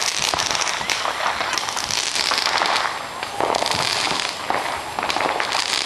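Fireworks and firecrackers going off in rapid succession: a dense, continuous crackle of many small bangs.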